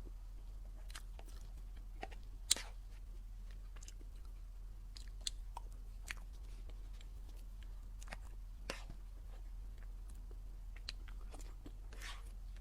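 Close-miked chewing and biting of a dessert flower, with scattered soft crunches and wet mouth clicks. The sharpest click comes about two and a half seconds in.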